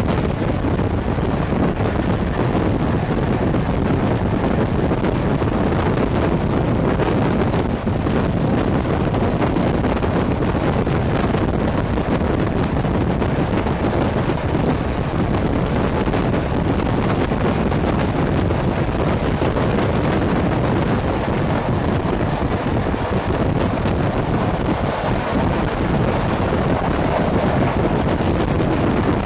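Steady running noise of a passenger train hauled by an SU45 diesel locomotive, heard from an open coach window, with heavy wind rushing over the microphone.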